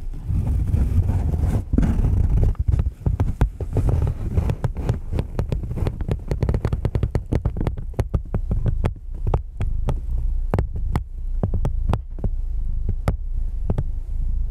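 Cardboard box creaking and crackling under a cat's weight, heard from inside the box: a dense run of sharp crackles that thins out to scattered single cracks toward the end, over a steady low sound.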